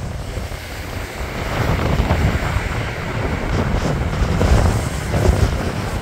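Stormy sea surf breaking and washing up a pebble beach, under strong gusting wind that buffets the microphone. The surge swells about two seconds in and again near the end.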